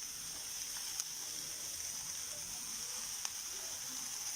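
Chopped sponge gourd and onions sizzling in hot mustard oil in a kadhai: a steady frying hiss, with two faint sharp ticks about a second in and just after three seconds.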